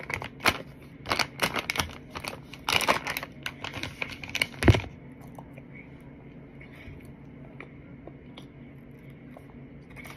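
Plastic bag of potato starch crinkling and crackling as it is handled, with many sharp crackles and the loudest one about four and a half seconds in. After that it goes quiet apart from faint small clicks.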